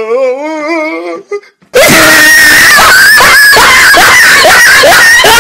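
A wavering, wailing voice for about a second and a half, then from about two seconds in a very loud, harsh blast with a steady shrill tone and repeated short rising squeals, like screaming.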